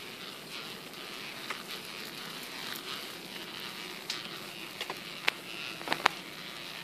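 Odder pram rolling along a paved footpath: a steady rolling hiss with scattered sharp clicks and ticks, several close together in the last two seconds.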